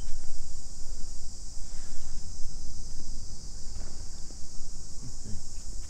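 Steady high-pitched chorus of insects, with a low rumble underneath.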